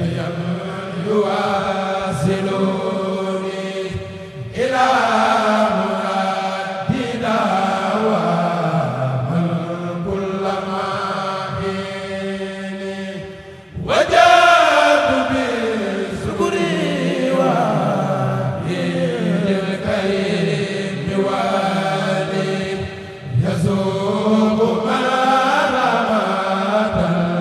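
A kourel group chanting a Mouride khassida in Arabic, voices only, in long melodic phrases. Short breaths break the chant, and new phrases come in about four, fourteen and twenty-three seconds in. The entry at fourteen seconds is the loudest.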